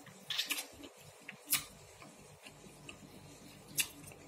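Quiet eating sounds while cireng is chewed: a few sharp, scattered clicks, the loudest about a second and a half in and near the end.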